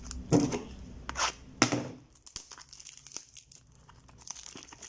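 Clear plastic wrap being torn and crinkled off a small cardboard box by hand: a few sharp rips in the first two seconds, then fainter crackling.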